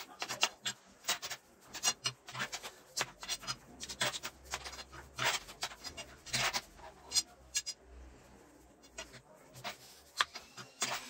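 A thin metal rolling rod clicking and knocking against a stone worktop as dough is wound around it and rolled back and forth by hand, in a quick, irregular run of taps.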